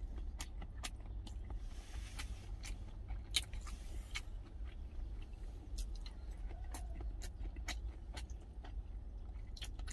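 Close-up chewing and small mouth clicks of a person eating rice and potatoes, with occasional light clicks of a wooden spoon on a stainless steel lunch tin, over a steady low hum.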